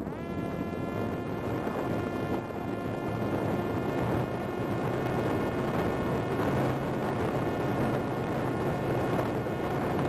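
Parrot Disco fixed-wing drone's electric motor and pusher propeller whining. The whine sweeps sharply up in pitch at the start and then holds a steady high pitch, over a rushing noise.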